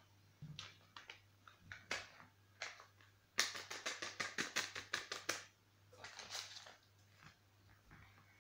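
Paper sachet of baking powder being shaken and flicked empty over a mixing bowl: a quick run of crisp taps, about five a second for two seconds, with a few scattered clicks before it and a brief papery rustle after.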